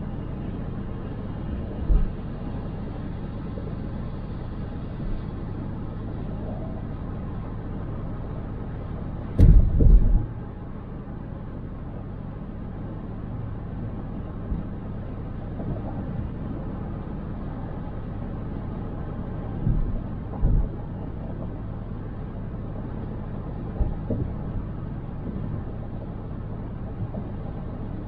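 Car driving on city streets: steady low road and engine rumble, with a few brief thumps, the loudest about nine to ten seconds in with a sharp click.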